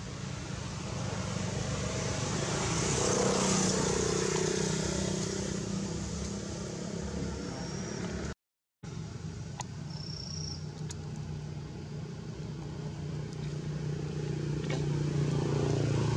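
Motor vehicle engines running nearby, a low steady hum that swells about three seconds in, fades, and builds again near the end. The sound cuts out completely for a moment about halfway through.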